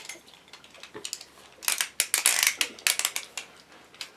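Hard plastic clicking and clattering, densest about one and a half to three seconds in: Beyblade tops and launchers being handled and readied for the next launch.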